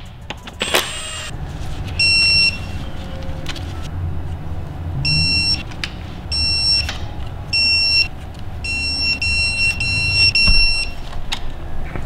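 Electronic beeps from a digital torque wrench as the flywheel bolts are torqued to 121 N·m: a single pitched tone repeated in short bursts, once about two seconds in and then more and more often from about five seconds, almost continuous near the end, signalling that target torque is reached. A low steady hum runs underneath.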